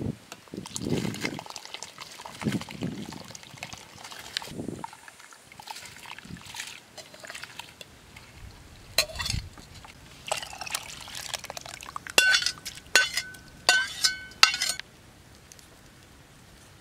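Water being poured and splashing in uneven spurts, then a few sharp clinks with a short ringing tone near the end.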